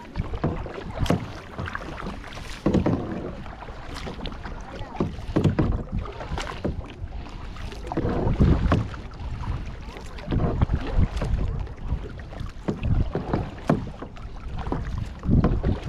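Kayak paddle strokes dipping and splashing in the water, irregular surges every second or two, with wind rumbling on the microphone.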